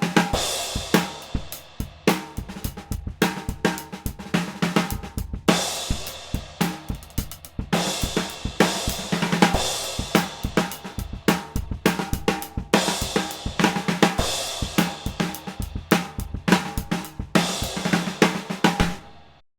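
Drum kit groove built around a NOAH DC 14x6-inch snare drum, with hi-hat, bass drum and cymbal crashes at intervals, played dry without EQ. The playing stops near the end.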